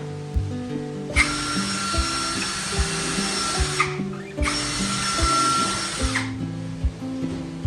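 A drill-like electric power tool runs twice, first for about two and a half seconds, then after a short pause for about two seconds, each run steady with a high whine. Background music with a steady beat plays throughout.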